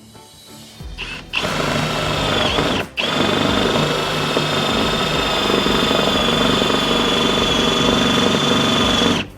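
Battery power drill running at a steady high whine, drilling into the Dodge Durango's sheet-metal roof. It starts about a second in, stops briefly around three seconds in, then runs on until just before the end.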